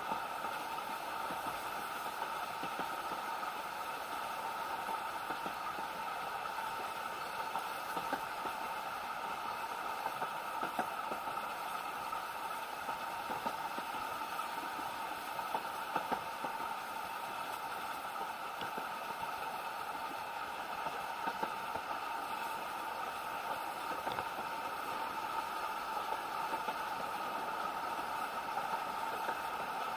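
Steady running noise of a narrow-gauge railway carriage on the move, heard from inside: a constant rattle and hum with occasional faint clicks from the wheels and track.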